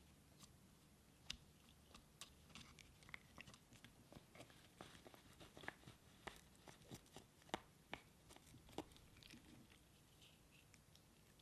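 Faint, irregular clicks and crunches of a Bengal cat chewing.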